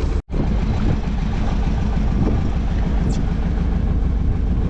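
Sailboat's inboard engine running steadily under power, a low even hum. The sound cuts out for an instant just after the start.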